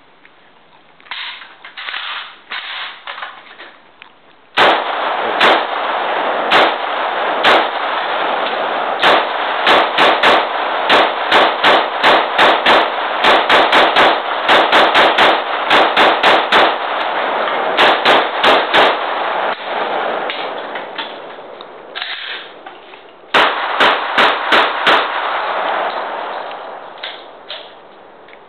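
Gunshots fired in long strings: single shots about a second apart at first, then quicker runs of several shots a second, with a loud continuous wash of sound carrying between the shots.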